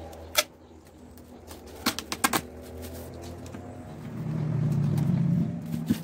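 Clear packing tape and a black plastic bag being handled and pressed around a plastic pot, giving a few sharp clicks and crackles. Under them runs a low hum that swells louder for about a second and a half near the end.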